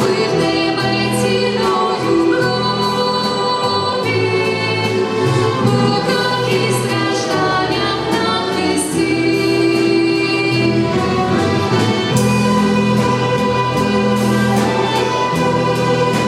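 Mixed choir singing a hymn with orchestral accompaniment.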